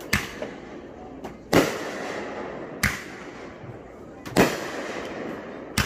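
Aerial fireworks going off: five sharp bangs about one and a half seconds apart, each followed by a rolling echo.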